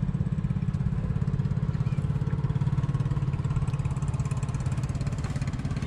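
Outrigger boat's small engine running steadily with a rapid, even throb.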